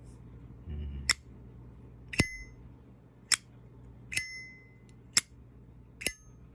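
Zippo lighter lid flicked open and snapped shut about three times, six sharp metallic clicks roughly a second apart, every other one with a ringing ping. The lighter has gone two weeks without maintenance or oiling.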